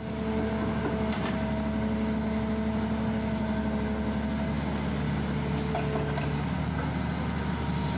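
Volvo excavator's diesel engine running under load with a steady whine as its grab lifts a car. The whine shifts lower about four and a half seconds in.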